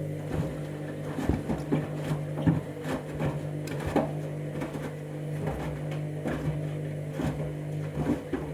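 Candy washing machine on a main wash, its motor humming steadily as the drum turns, with irregular knocks and thuds from slippers tumbling and banging about inside the drum.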